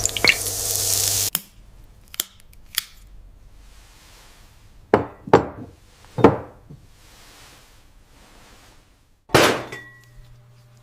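A noisy machine hiss with quick clinks cuts off about a second in. After it come scattered sharp clinks and knocks of hard objects: two small ticks, then four louder strikes that ring briefly, the loudest near the end, followed by a low steady hum.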